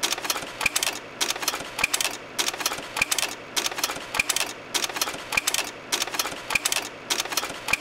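Rhythmic mechanical clatter: quick clusters of sharp clicks about twice a second, with a short high ping roughly once a second.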